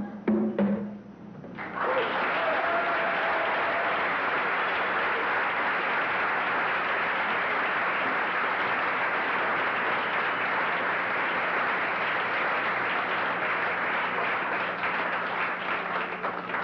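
Audience applauding steadily for about fourteen seconds, starting just after the last few conga strokes and thinning out near the end.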